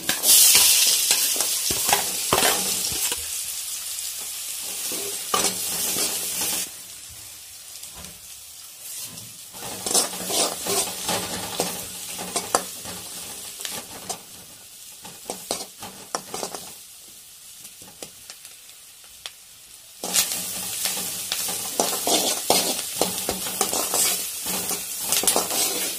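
Chopped onions tipped into hot oil in a steel kadai, sizzling loudly at once. After about six seconds the sizzle drops to quieter frying, with a steel ladle scraping and clicking against the pan. A loud sizzle comes back about twenty seconds in as the onions are stirred.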